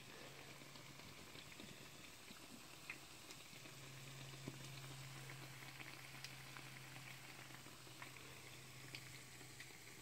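Faint sizzle of chicken shami kebabs shallow-frying in oil in a pan, with scattered small crackles and pops, over a low steady hum that grows a little louder about a third of the way in.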